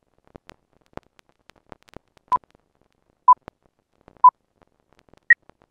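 Film-leader countdown beeps: three short steady beeps of the same pitch about a second apart, then a higher-pitched beep near the end, over scattered faint clicks and crackle like old film.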